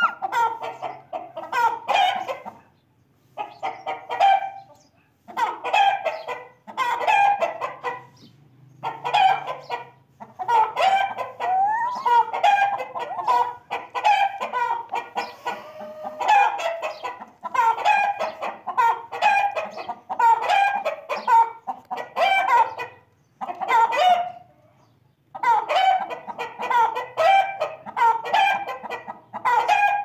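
Chickens clucking in runs of rapid clucks. Each run lasts one to two seconds, with short pauses between.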